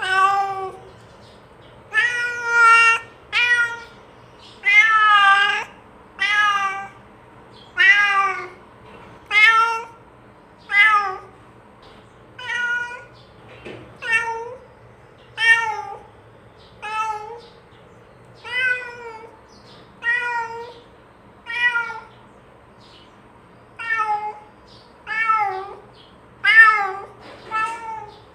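Domestic cat meowing over and over, about twenty short meows, one every second and a half or so, each falling in pitch at the end: a cat calling out to another cat.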